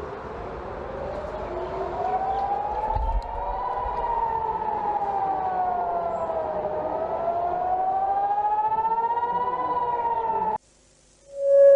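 Civil defence warning siren wailing, its pitch slowly rising, falling and rising again, then cutting off abruptly near the end. A steady electronic alert tone starts just after.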